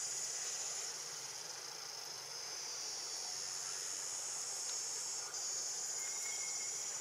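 Steady high-pitched insect chorus, a continuous shrill buzz that dips briefly about five seconds in.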